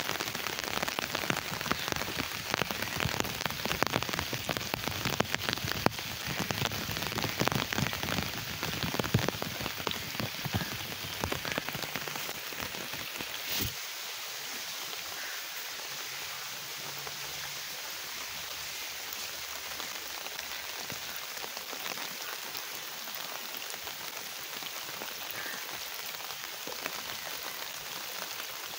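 Rain falling, louder and full of sharp drop hits in the first half. About halfway through there is a click, and after it the rain is a softer, even hiss.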